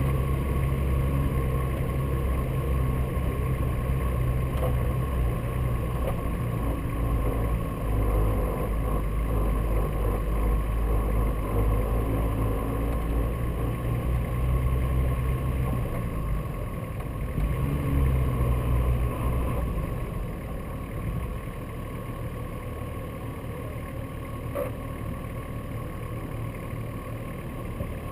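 Nissan Patrol 4x4's engine running steadily as it drives over snow, with the hiss of tyres and wind. About two-thirds through, the revs briefly rise, then the engine eases off to a lower, quieter run.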